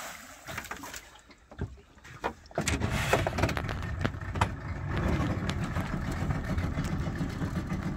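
A few knocks, then about two and a half seconds in the dinghy's outboard motor starts and runs steadily.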